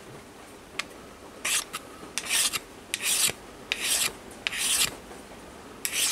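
Hand file rasping across an aluminium part in about six short, separate strokes, starting about a second and a half in.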